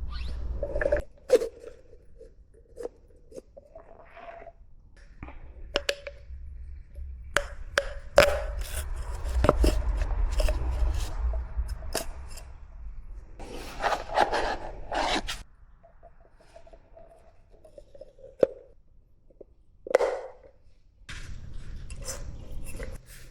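Scattered clicks, knocks and scraping of hands and tools handling the oil filter housing and filter cartridge of a Golf TSI engine during an oil change. A steady low rumble comes and goes underneath.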